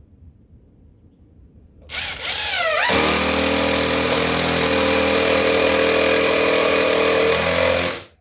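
Cordless drill driving a screw into subfloor: it starts suddenly about two seconds in, wavers in pitch as it spins up, then runs as a steady whine for about five seconds and stops abruptly near the end.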